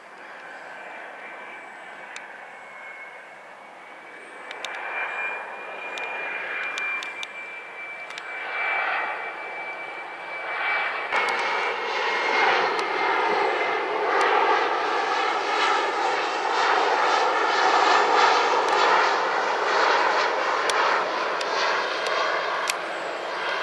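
Boeing 737-300's two CFM56-3 turbofan engines on final approach, a steady high whine over a rushing roar that grows louder as the jet comes overhead. Loudest in the second half, when the whine dips slightly in pitch.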